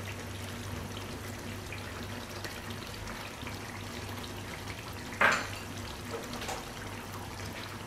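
Mutton curry simmering in a frying pan on the stove, a steady low sizzle over a faint hum. A single short knock about five seconds in.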